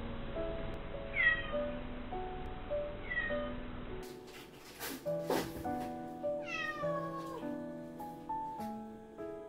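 Adult calico cat meowing several times, each meow sliding down in pitch, the longest about two-thirds of the way through, over gentle background music.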